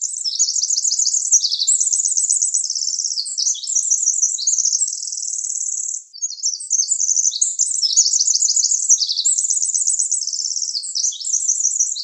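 Pacific wren singing its long territorial song: rapid, high-pitched trills and twittering notes run together without pause, with a brief break about six seconds in before a second song.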